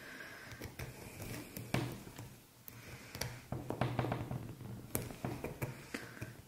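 Small clicks and taps with soft handling rustle as the metal prongs of a magnetic bag snap are bent over its metal washer.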